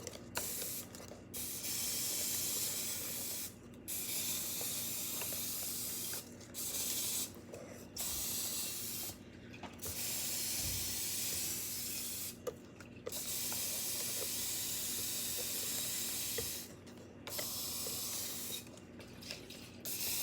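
Aerosol cooking-oil spray can hissing in repeated bursts of one to three seconds with short breaks between, greasing a cupcake pan.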